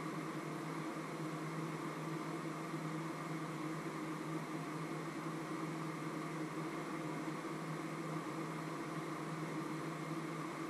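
Steady machine hum with an even hiss over it, unchanging, like a running appliance motor or fan.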